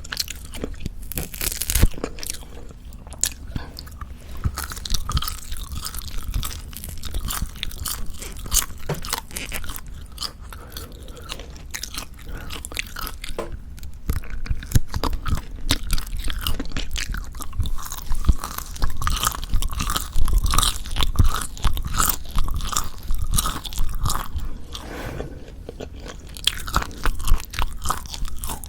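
Close-miked chewing of Jeju black pork jerky: dense crackling and crunching bites and chews, busier and louder in the second half.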